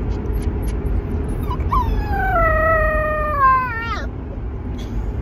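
Puppy howling once: a single drawn-out cry that starts high, slides steadily down in pitch and breaks off with a quick drop near the end, over the low rumble of a car interior.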